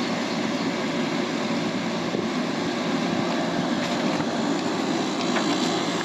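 Window air conditioner running: a steady fan and compressor drone with no change in pitch.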